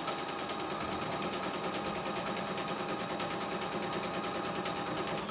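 CNY E960 computerised sewing and embroidery machine sewing a buttonhole stitch: rapid, even needle strokes over a steady motor whine.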